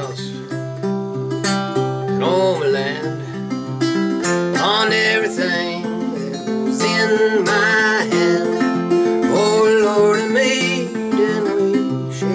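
A 1972 Harmony-made Stella 3/4-size acoustic guitar played fingerstyle blues, with no effects, in a bright, dry tone: an alternating thumb bass under a treble melody with bent notes. The low bass drops out for several seconds in the middle, then comes back near the end.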